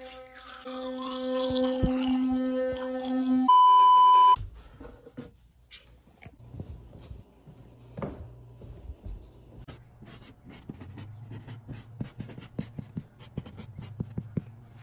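Electric toothbrush running with a steady buzzing hum, cut off by a loud, pure, steady beep lasting under a second. After that come quieter scattered soft taps and clicks.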